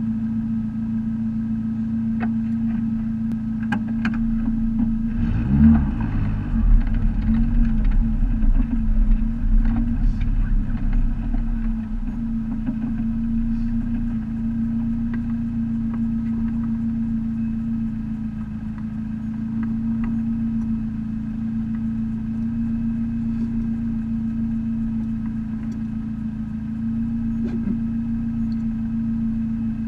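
Dodge Neon's four-cylinder engine idling steadily, heard from inside the caged cabin. About five seconds in it pulls the car forward a short way with a deeper, louder, wavering rumble for several seconds, then settles back to a steady idle.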